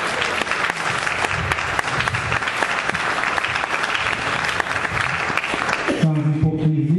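A congregation applauding, steady clapping that ends about six seconds in, when a man's amplified voice speaks again.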